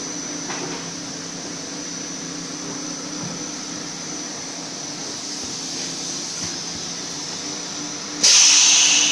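Extrusion blow molding machine running with a steady hum and a thin high whine. About eight seconds in, a sudden loud hiss of compressed air starts and fades over a second or so.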